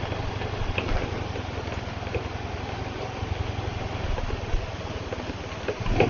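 River water flowing: a steady rush with a low rumble underneath.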